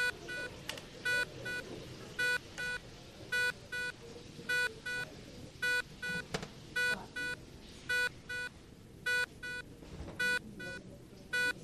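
Electronic telephone ringing in a steady double-beep pattern, a loud beep followed by a shorter, softer one, repeating about once a second over a low background murmur.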